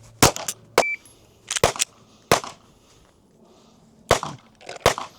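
A string of pistol shots from a Glock, fired in uneven groups: a quick cluster near the start, another around a second and a half in, then single shots spaced about half a second to two seconds apart. A short high beep sounds about a second in.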